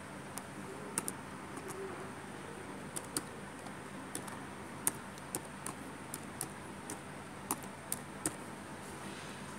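Computer keyboard being typed on: a string of irregular single keystrokes, some fifteen sharp clicks unevenly spaced, which stop shortly before the end. Under them runs a steady low hiss.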